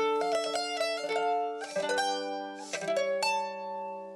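Solo mandolin, its paired strings plucked with a pick: a quick run of notes, then a few more notes and a chord about three seconds in that rings and slowly fades.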